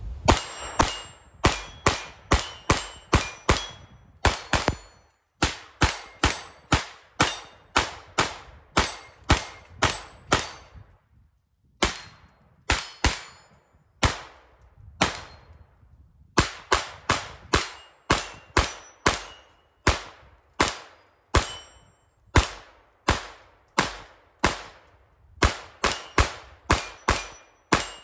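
Kel-Tec CP33 .22 LR pistol firing Federal AutoMatch 40-grain rounds in a long string at about two shots a second, with a few short pauses, and a short metallic ring after many of the shots. The pistol cycles every round without a jam.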